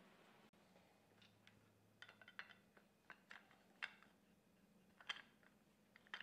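A scatter of faint metallic clicks and clinks as a timing chain is handled and fitted around its sprockets and plastic guides, the sharpest about four and five seconds in.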